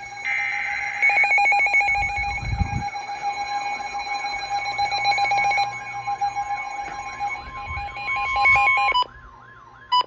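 Several emergency alert signals sounding over one another: bursts of buzzing data header, steady alarm tones and a warbling tone repeating about twice a second. The sound dips briefly about nine seconds in, then a steady alarm tone comes back.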